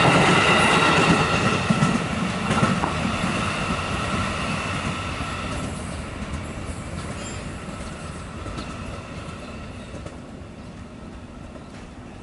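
KRL electric commuter train rolling away on its rails, its wheels giving a steady high squeal over the rumble. The sound fades steadily as the train recedes, and the squeal dies out about halfway through.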